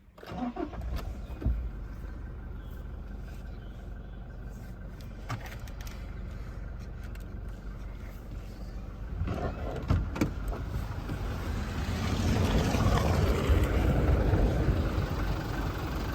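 Toyota Innova Crysta's 2.4-litre four-cylinder diesel engine starting and then idling, heard from outside the car. The sound grows louder and fuller in the second half.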